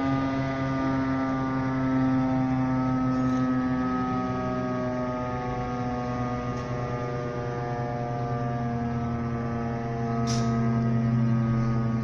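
Federal Signal STH-10 electromechanical fire siren sounding a long, steady wail for a fire company call-out, its pitch drifting slowly and its loudness fading and swelling again. A brief click comes about ten seconds in.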